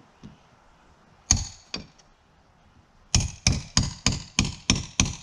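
Hammer blows on a nail in the wall: one hard blow, a lighter one, then a quick run of about eight blows, roughly three a second.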